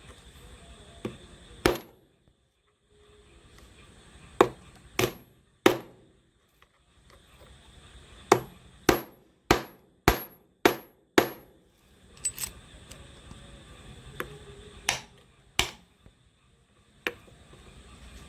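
Hammer strikes on metal parts during assembly: sharp, separate knocks with a short metallic ring, including a quick run of six blows about half a second apart near the middle.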